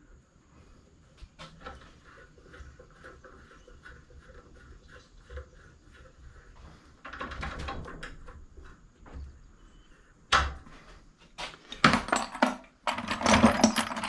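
Pieces of scrap brass being handled and worked on by hand: scattered light metal clicks and taps, then two louder, longer scrapes of metal on metal in the last couple of seconds.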